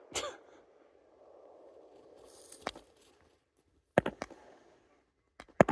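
New Year's Eve fireworks going off: a handful of separate sharp bangs spread over several seconds, two or three close together near the end, with a short hiss just before the one about two and a half seconds in.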